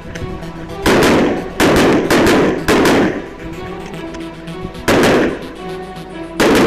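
Open-class pistol with compensator and red-dot sight firing fast strings of shots: a pair about a second in, a quick cluster around two to three seconds, then single shots near five seconds and near the end. Background music with steady tones plays underneath.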